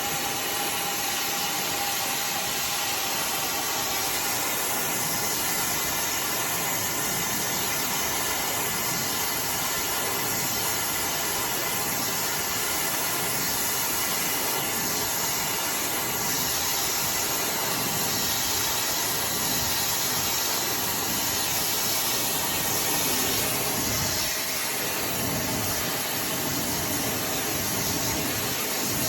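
iDryer AI Pro Style hair dryer blowing a steady hiss of air.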